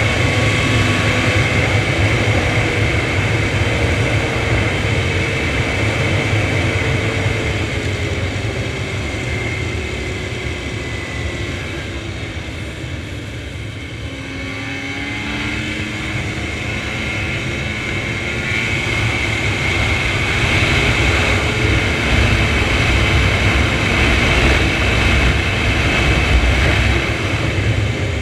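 Snowmobile running at speed along a trail. The engine note falls as it eases off, lowest about halfway through, then rises again as it speeds back up, with a steady high whine throughout.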